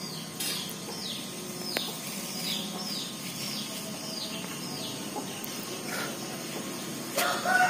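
A small bird calling a run of short, high, falling chirps, about two a second. Near the end a rooster starts to crow.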